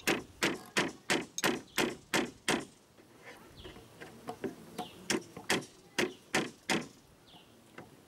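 Hammer striking nails into the wooden frame of a transitional beehive. It gives a quick run of about nine blows at roughly three a second, a pause with a few light taps, then a second run of about five blows.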